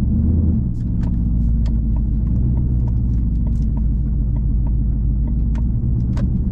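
2019 Ford Mustang GT's 5.0-litre V8, fitted with Kooks headers and a Borla ATAK cat-back exhaust, running with a steady low rumble at an even engine speed while driving. Light, scattered clicks sound over it.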